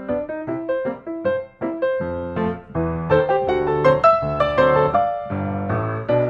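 Background piano music: a steady run of short struck notes in a melody over lower accompanying notes.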